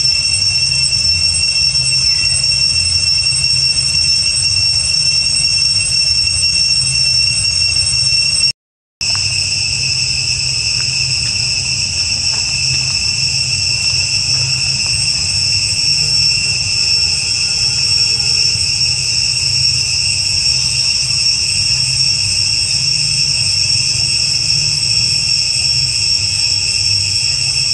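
Steady, high-pitched insect chorus droning without a break over a low rumble. It cuts out for a split second about a third of the way in, then resumes unchanged.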